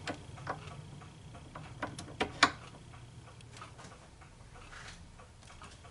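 Light, irregular metal clicks and taps of small tools being handled at a lathe, with three sharper clicks about two seconds in.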